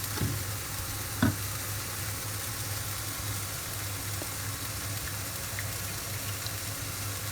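Steady sizzling hiss of hot cooking over a low hum, with a short knock just after the start and a sharper clack about a second in.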